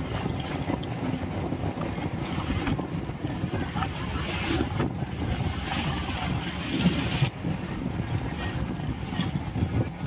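Suburban electric multiple-unit (EMU) train running at speed, its wheels rumbling and clattering on the track, heard from the open doorway. A brief high squeal sounds about three and a half seconds in.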